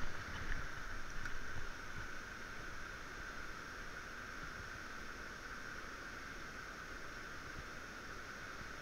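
Steady rushing of river water pouring over a small falls, an even hiss. A few soft knocks in the first couple of seconds.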